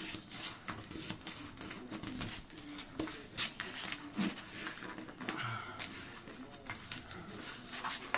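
Card stock being handled and pressed down by hand: light rustling with scattered small taps and clicks as a glued paper binding is set in place.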